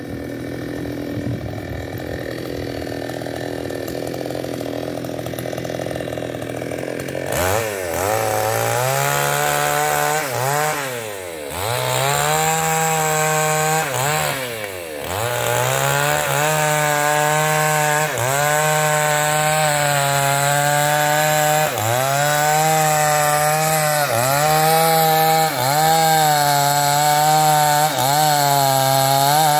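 New West 588 two-stroke chainsaw idling, then revving up about seven seconds in and cutting into a felled ketapang (tropical almond) trunk. Its engine note dips and recovers every couple of seconds as the chain loads up in the wood.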